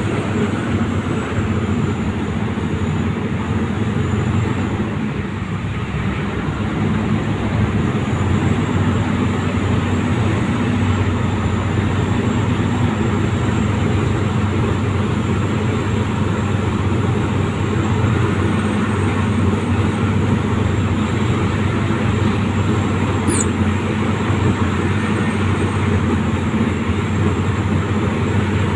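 Diesel engine of a BOMAG BC772 landfill compactor running steadily, a deep even drone.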